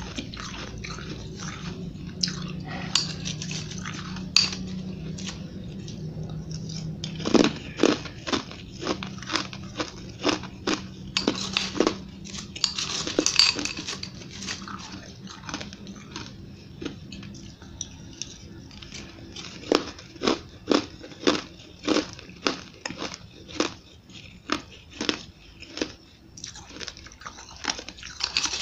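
Powdery refrozen ice crunching as a metal spoon scrapes and breaks through it in a glass bowl, with chewing of mouthfuls of ice. The sharp crunches come in runs of one to three a second.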